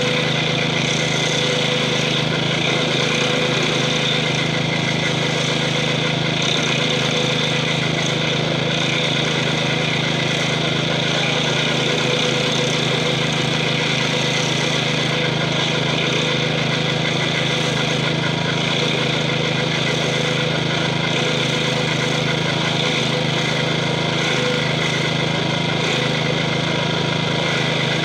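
Gravely 5640's 12 hp Kohler single-cylinder engine running steadily under load, driving a stump-grinder wheel that is chewing into a tree stump.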